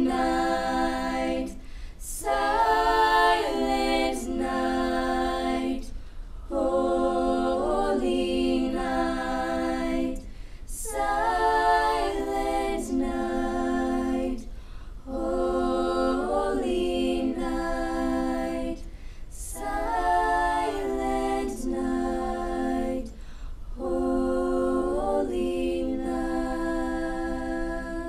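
Choir singing a cappella, in held phrases of a few seconds each with brief pauses between them.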